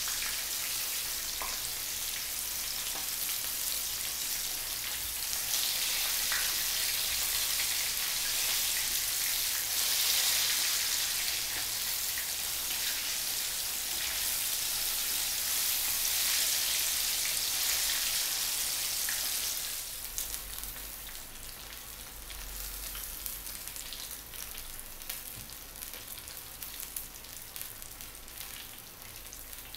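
Flour-coated dory fish pieces shallow-frying in hot oil: a dense, steady sizzle that drops at about twenty seconds to a quieter sizzle with scattered pops and crackles.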